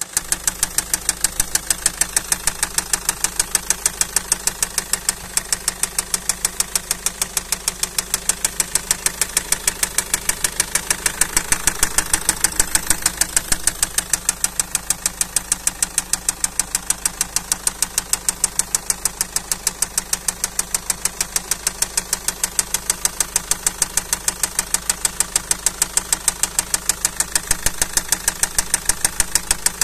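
Car diesel engine idling with a sharp metallic knock repeating evenly, several times a second, over the steady running; the knock is the engine fault the video is about.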